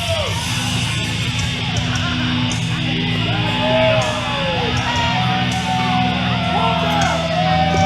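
Heavy rock music led by electric guitar, with long bending lead notes over a steady low backing.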